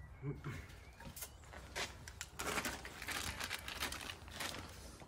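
Soft rustling and a few light clicks of gloved hands handling small parts while centering rings are tried in an alloy wheel's centre bore.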